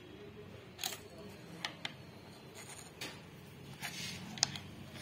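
Light clicks and taps, about six scattered through, as a pen is turned by hand in its presentation box, over a faint background murmur of voices.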